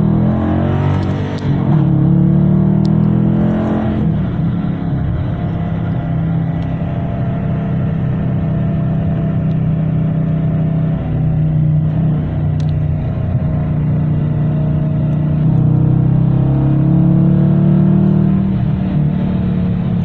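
Dodge Challenger R/T's 5.7-litre HEMI V8 heard from inside the cabin, accelerating hard from about 35 to 70 mph. Its note rises in pitch over the first few seconds, holds steady, then climbs again near the end.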